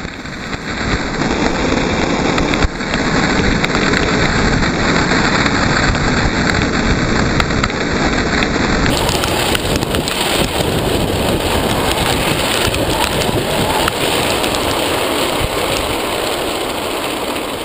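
Steel ball-bearing wheels of a wooden gravity cart rolling fast on asphalt, heard from on board: a loud, continuous gritty rumble and rattle. The sound shifts abruptly about nine seconds in.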